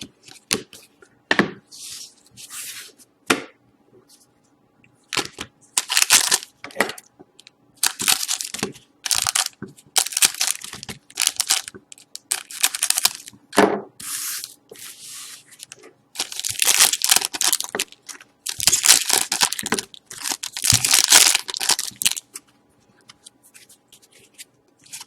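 Hockey card pack wrappers being torn open and crinkled in hand: a series of rustling rips and crackles, one after another with short pauses between.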